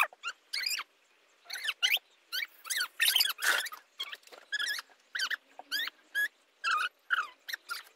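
Many short, high-pitched animal squeaks and chirps, coming irregularly and bending up and down in pitch.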